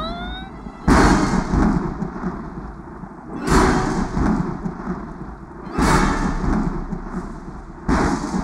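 Four loud thunderclaps, each a sudden crack that rumbles away, about two and a half seconds apart.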